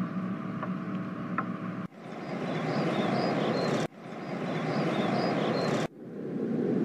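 Background ambience of an animated cartoon. It begins as a faint room hum with a few light ticks, then becomes a steady rushing noise with small high chirps. The noise cuts out and fades back in about every two seconds as the scenes change.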